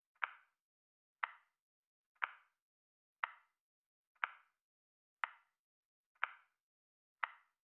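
Countdown timer ticking, one short sharp tick every second, eight ticks in all.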